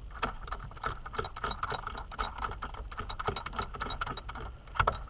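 Metal tools and parts clinking and rattling in many small light knocks while a steering wheel puller is fitted to a van's steering column, with one sharper knock near the end.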